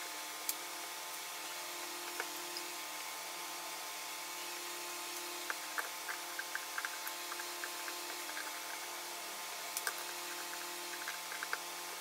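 Faint small clicks and scrapes of a hand screwdriver turning mounting screws into a 3.5-inch hard drive, coming more often in the second half. A low, steady hum runs underneath.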